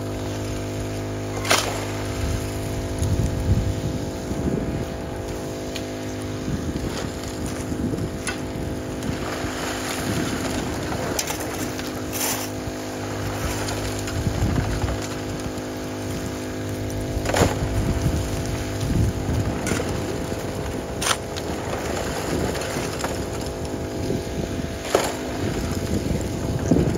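A small Honda water pump's engine running steadily, with scattered sharp scrapes and clacks of steel shovels digging into and tossing river gravel.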